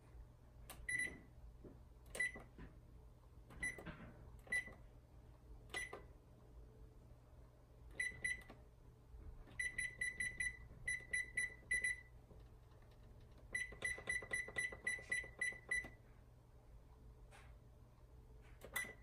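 Frigidaire electric range's touch-control panel beeping as its buttons are pressed: several single beeps a second or so apart, then quick runs of beeps at about four or five a second, and one last beep near the end.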